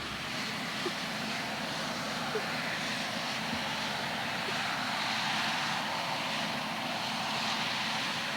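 Deutz-Fahr M36.40 combine harvester running steadily under load while cutting oilseed rape: an even, continuous machine noise with a low engine hum beneath.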